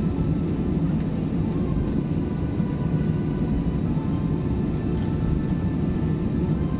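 Steady low rumble of an Airbus A321 cabin with the engines at ground idle while the airliner holds on the runway, with a faint high steady whine over it.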